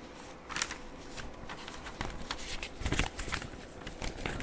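Irregular rustling and soft clicks of handling noise, over a faint steady hum.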